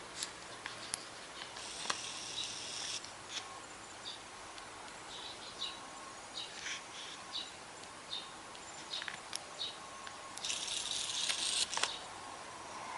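Quiet outdoor ambience: scattered short high chirps and ticks, with two hissing bursts of a second or so, one about two seconds in and a louder one near the end.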